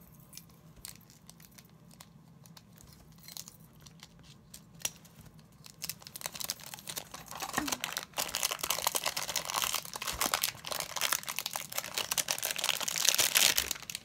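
Plastic packaging crinkling and tearing as a puzzle cube is unwrapped. There are a few scattered light clicks at first, then dense crinkling from about halfway in, loudest near the end.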